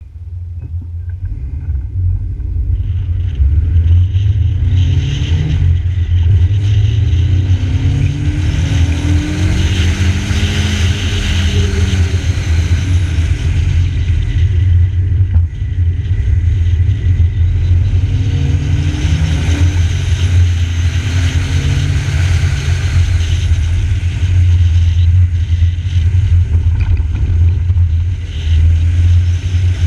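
VW Polo G40's supercharged 1.3-litre four-cylinder engine accelerating through the gears, its pitch rising again and again and dropping back at each gear change. Under it, a steady low wind rumble on the bonnet-mounted microphone.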